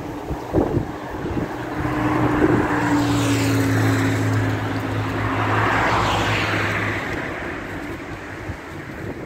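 A motor vehicle passing: a low engine hum with a tone that dips slightly in pitch, swelling over a few seconds and fading out about seven seconds in, over steady wind noise.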